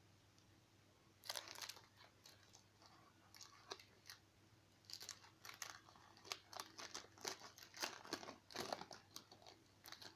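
Foil-lined trading-card pack wrapper being torn open and crinkled by hand, a run of short crackling rustles starting about a second in.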